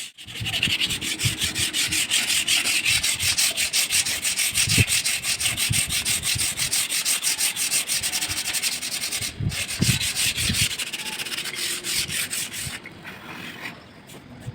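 Sandpaper rubbed back and forth on wood by hand in quick, even strokes, stopping shortly before the end.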